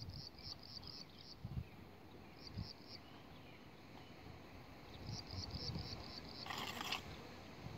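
Cricket chirping in trains of quick, high pulses: a burst at the start, a shorter one about two and a half seconds in, and a longer run after five seconds. A brief rustling hiss about six and a half seconds in.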